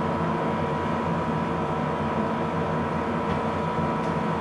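Steady machine hum and rushing noise with a constant high whine, unchanging throughout.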